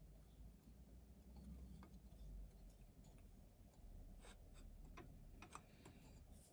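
Near silence with a few faint, sharp metal clicks and taps, mostly in the second half, as a metal pony truck bolster is fitted between a pair of model locomotive frames.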